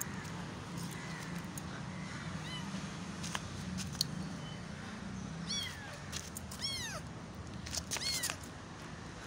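A young kitten meowing: a string of short, high meows, faint at first, with the three clearest in the second half, each rising and then falling in pitch. Scattered light clicks and a low steady hum sit underneath.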